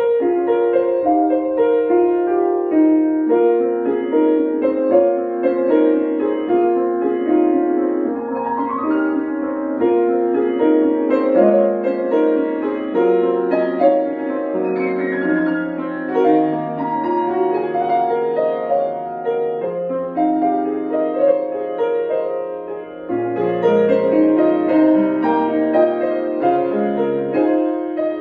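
Solo piano playing a flowing melody over held bass notes, with quick upward runs about eight and fourteen seconds in.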